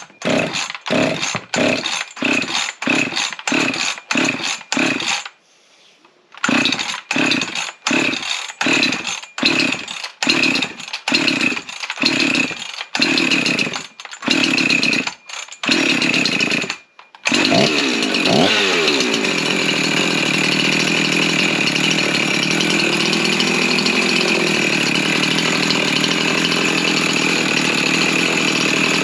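Rebuilt Husqvarna 353 two-stroke chainsaw being pull-started on its first fire-up after a new cylinder and piston: quick recoil-starter pulls, about two a second, with a short pause around five seconds in. About seventeen seconds in it catches, its revs drop, and it settles into steady running.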